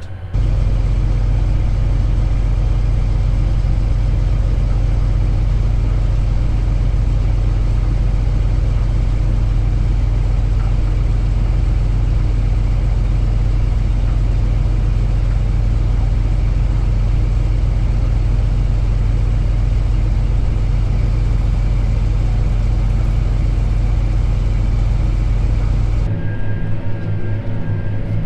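Tractor engine running steadily with a deep, even drone. About two seconds before the end the sound drops a little and changes to a lighter engine tone.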